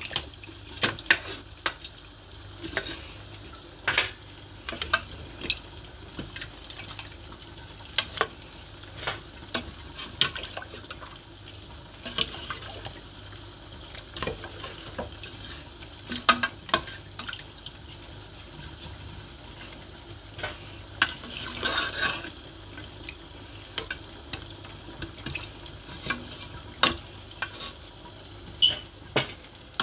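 A spoon stirring meat in a metal pot of broth: liquid sloshing and squelching, with irregular sharp knocks of the spoon against the pot.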